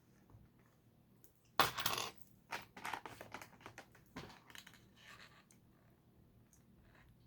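Small plastic LEGO pieces clattering. A loud rattle comes about one and a half seconds in, then a few seconds of small clicks and clinks.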